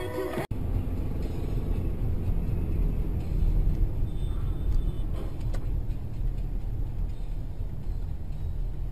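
Steady low rumble of a car's engine and road noise picked up by a dash camera, with a few faint clicks. The sound cuts out briefly about half a second in, then carries on unchanged.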